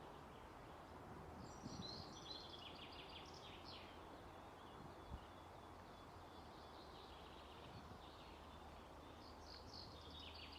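Faint bird chirping over a quiet open-air background, in runs of short high notes about two seconds in and again near the end, with a single faint tap about five seconds in.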